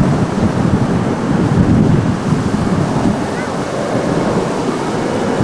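Low rushing rumble of an Airbus A330-200 airliner's engines on final approach with gear down, the plane still some way off, mixed with wind buffeting the microphone.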